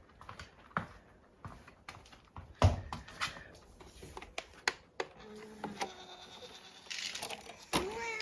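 Scattered small clicks and taps of dry cat biscuits being handled and served, with one louder knock about a third of the way in. A cat gives a short meow near the end.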